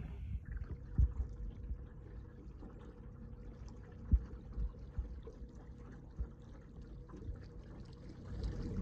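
Lake water lapping and trickling against the side of a jon boat over a low rumble, with two light knocks, about a second in and again about four seconds in.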